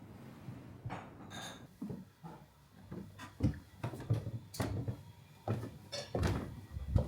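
Irregular knocks, clicks and clatter of objects being handled and set down in a small space, like lids, latches or doors being opened and closed.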